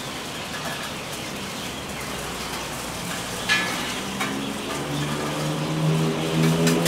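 Steady sizzling hiss of food frying, with a short sharp clink about halfway through. Near the end a motor vehicle's engine hum comes in and grows louder.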